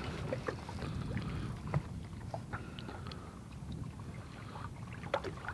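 Wind rumbling on the microphone and lake chop lapping against a boat, with a scattering of small clicks and knocks from gear handled aboard.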